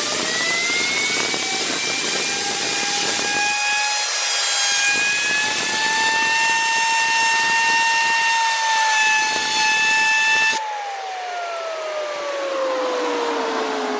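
Fidget spinner driven by a 150 PSI compressed-air jet from an air compressor nozzle: a loud air hiss with a high whine from the spinner that rises and then holds steady. About ten and a half seconds in, the air cuts off suddenly and the spinner's whine falls slowly as it coasts down.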